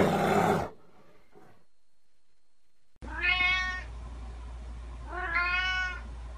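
A tabby cat meows twice, each meow a short rising-then-falling call, about two seconds apart, over a low steady hum. Before that, the end of a brown bear's low vocalisation cuts off under a second in.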